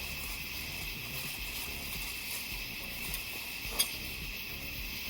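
A steady high hiss of outdoor background noise, with one sharp click a little under four seconds in as the animatronic's plastic leg-support pieces are handled.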